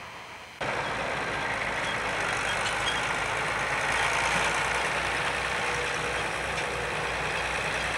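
Farm tractor engine running steadily. It cuts in suddenly just after the start.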